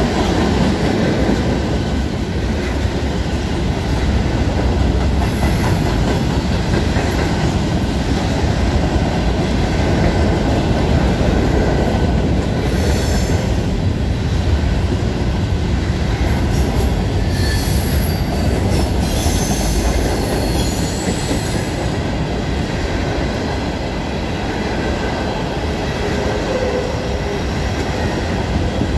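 Norfolk Southern freight train rolling past: a steady rumble of covered hoppers and tank cars on the rails, with a few brief high wheel squeals partway through.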